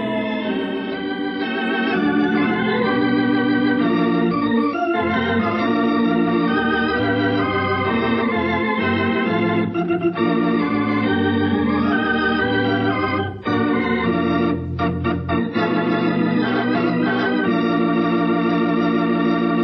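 Organ playing the program's closing theme: held chords moving from one to the next.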